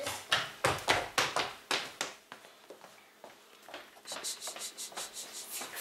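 A quick series of sharp taps, several a second, then a pause, then a run of light, rapid high-pitched clinking starting about four seconds in.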